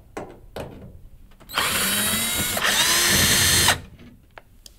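Cordless drill-driver unscrewing the screws that hold a washing machine's top panel. Its motor whines for about two seconds, stops briefly midway, then spins back up to speed. A few light clicks come before it starts.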